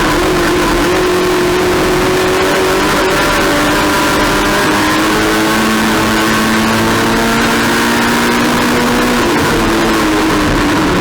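Race car engine running hard at racing speed, its pitch rising and falling slowly with the throttle, over a heavy rush of road and wind noise.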